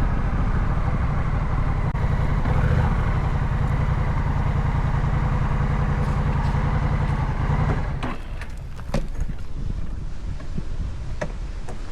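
Honda Rebel 1100's parallel-twin engine running steadily as the motorcycle rides along, dropping away about eight seconds in, after which scattered clicks and knocks are heard.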